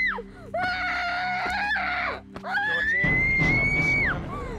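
A woman screaming in terror as she is attacked: three long, high-pitched screams that each fall away at the end, the middle one lower and wavering. A low, steady music drone runs underneath.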